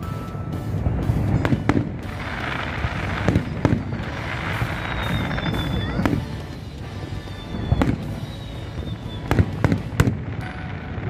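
Fireworks going off: a series of sharp bangs at uneven intervals, with a quick run of several close together near the end.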